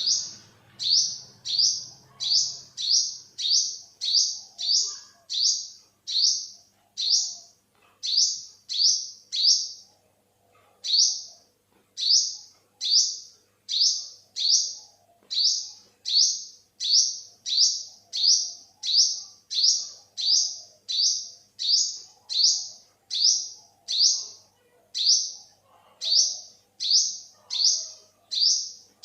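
Olive-backed sunbird calling: a short, high, rising note repeated about twice a second, with a couple of brief pauses in the run.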